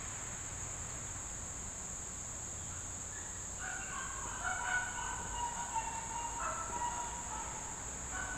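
Chickens calling, a run of short calls for a few seconds in the middle, over a steady high insect drone.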